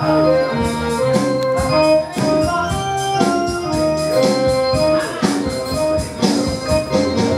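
Instrumental interlude of Taiwanese opera accompaniment: an electronic keyboard with an organ sound plays a melody in held notes over a steady percussion beat, with no singing.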